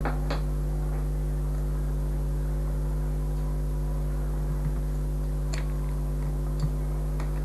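A steady low electrical hum from the mains, with its overtones, fills the sound, and a few faint clicks come through it.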